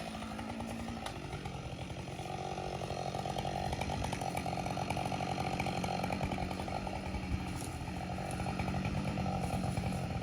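Chainsaw idling steadily, quieter than at full throttle, its engine tone holding even.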